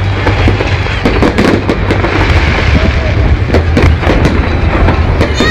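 Fireworks display: a dense, continuous run of bursting shells, bangs and crackling over a low rumble.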